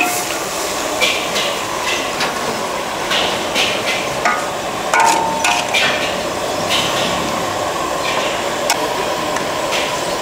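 Irregular knocks and short metallic clinks of cooking utensils and crockery at a hawker food stall, over a steady market din.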